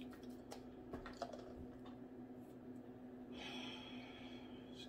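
Faint mouth sounds and small clicks of someone chewing food, over a steady low hum. About three and a half seconds in, a soft hiss lasts about a second and a half.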